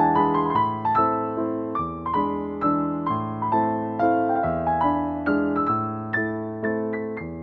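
Background music: electric piano playing a slow melody of single struck notes, each sounding and fading, about two to three a second.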